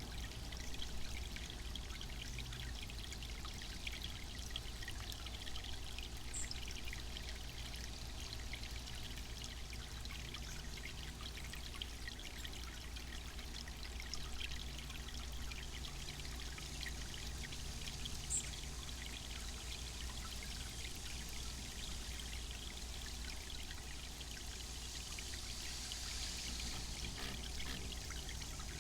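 Water from a small garden bird-bath fountain splashing and trickling steadily.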